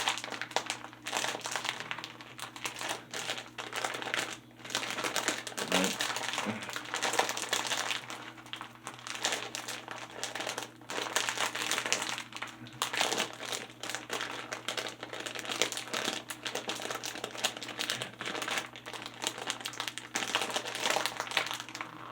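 A crinkly plastic snack bag of Bigfoot cheese snacks being handled and pulled at, crinkling continuously in irregular bursts as it is worked open without tearing.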